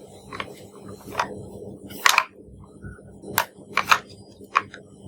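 Hard objects being handled: about six irregular sharp clicks and knocks, the loudest a short clatter about two seconds in, over a faint steady hum.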